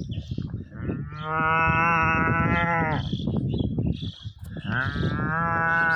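A man imitating a cow mooing with his hand cupped over his mouth: two long, steady moos, the second starting about five seconds in.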